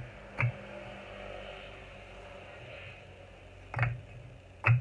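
Red clay bricks knocking together as they are handled and stacked: three sharp clacks, one about half a second in and two close together near the end, the last the loudest.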